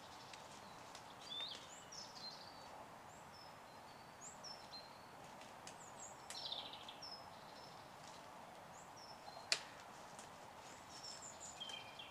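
Woodland ambience: small songbirds chirping and twittering in short high notes, scattered throughout, over a steady faint hiss. One sharp click about nine and a half seconds in.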